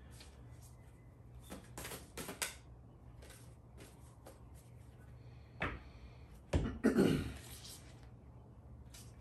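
Oracle cards being shuffled and handled: a scatter of light clicks and snaps over a low room hum, with a sharper knock about five and a half seconds in and a louder, longer burst of noise about seven seconds in.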